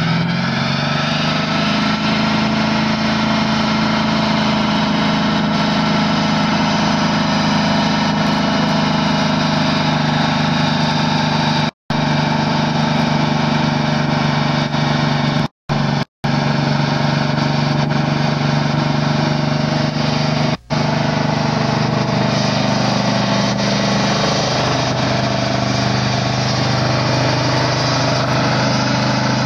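Car engine held at high revs through a long burnout, its rear tyres spinning against the pavement. The revs climb in the first second and then hold steady; the sound drops out for an instant a few times.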